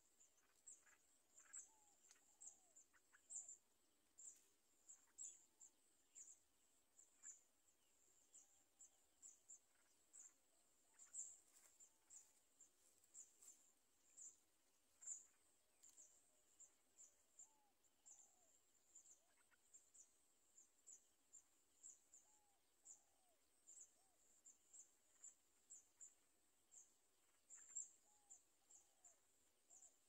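Near silence with faint, irregular high-pitched chirps, roughly two a second, and now and then a few soft, short, lower call notes.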